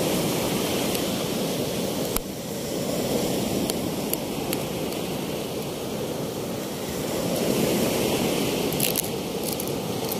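Steady rushing noise of wind and waves outdoors on the microphone, swelling and easing slowly. A few light clicks and taps of handling, about two seconds in, around four seconds in and near the end.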